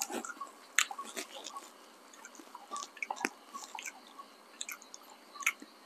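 Someone chewing a piece of smoked, air-dried beef with a spice crust: scattered small crunching and clicking sounds.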